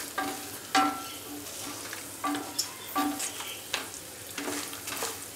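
Wooden spatula stirring peanuts, chana dal, pumpkin seeds and cashews frying in oil and ghee in a stainless steel pan. Irregular knocks and scrapes against the pan, several with a short metallic ring, over a faint sizzle.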